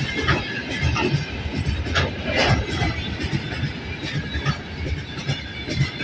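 Freight train of open gondola wagons rolling past close by: a steady rumble and clatter of wheels on the rails, with brief wheel squeals about two seconds in.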